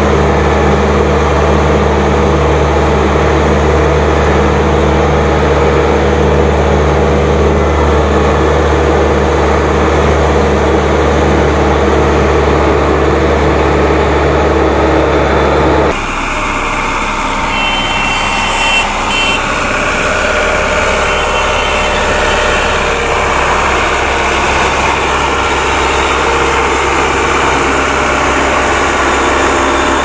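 Case 1107 EX vibratory road roller's diesel engine running steadily, heard loud and deep from the driver's seat. About halfway through the sound changes abruptly to the roller heard from further off, with a reversing alarm beeping in two short runs.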